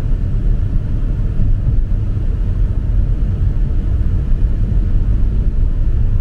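Steady low rumble of road and wind noise inside a car cabin at highway speed.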